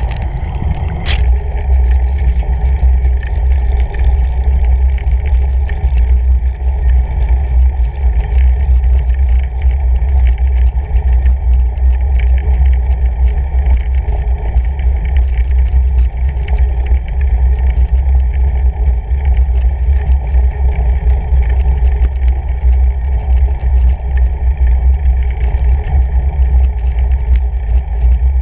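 Fat-tire bike riding over packed snow, heard through a handlebar-mounted camera: a loud, steady low rumble from the tires and bike, with small ticks and clicks throughout.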